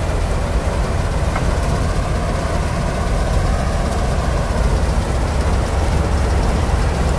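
Self-propelled combine harvester running steadily while cutting a mustard crop, a heavy low engine rumble with its machinery. A faint whine rises and fades near the middle.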